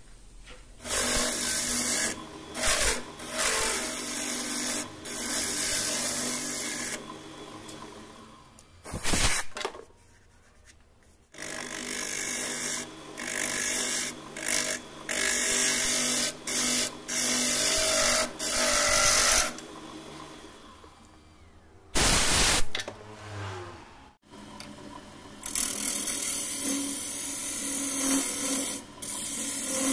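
A wood lathe turning hollows the inside of a goblet of hard mastic wood: the tool cuts in repeated passes, a loud scraping hiss, broken by short pauses when the tool comes off the wood.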